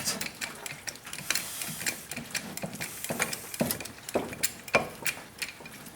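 Irregular light clicks and knocks, several a second, from tools and a wooden board being handled and fitted against the truck's bed panel.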